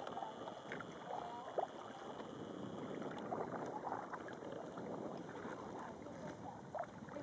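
Canoe being paddled on calm river water: steady trickling and light splashing of water around the paddle and hull, with a few soft knocks.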